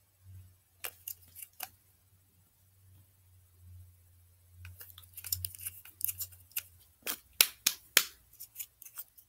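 Irregular sharp clicks and taps of a small bottle and its cap being handled: a few scattered ones early, then quick clusters in the second half. A low steady hum runs underneath and fades out about seven seconds in.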